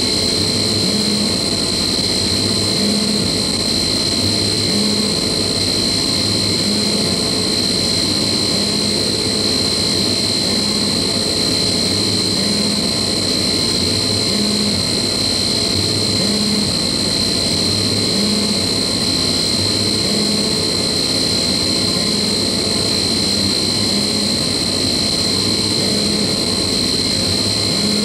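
Harsh noise-ambient electronic music: a loud, steady wall of noise with a sustained high whine on top and a low pulse that comes back about every two seconds.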